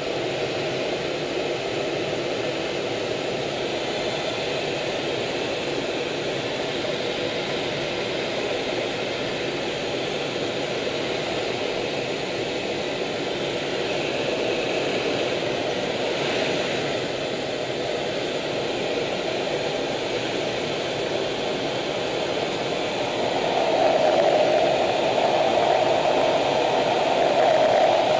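Steady rushing jet and airflow noise inside the cockpit of an F/A-18F Super Hornet in flight. It grows somewhat louder and fuller near the end.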